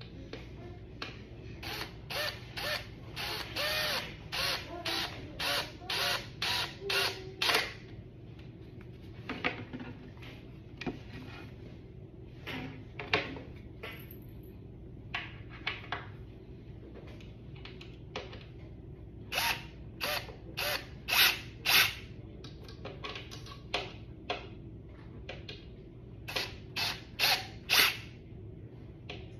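Cordless drill driving screws into a children's chair panel, squeezed in short bursts about two a second, in several runs of a few seconds each.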